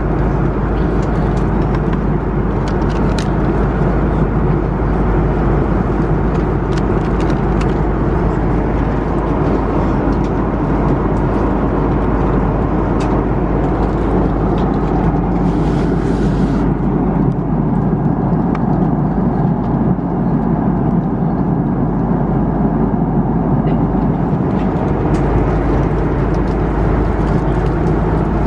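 Steady cabin noise of an Airbus A330-300 in cruise, a constant rush of airflow and engines heard from an economy window seat. There are a few light clicks, and a brief high hiss about halfway through.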